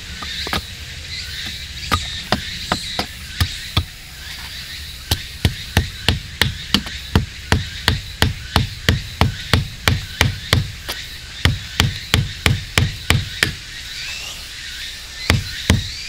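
A hatchet hammering a sharpened wooden stake into forest ground: a steady run of dull knocks, about two to three a second, after a few slower strikes at first, with a short pause near the end before the knocking resumes.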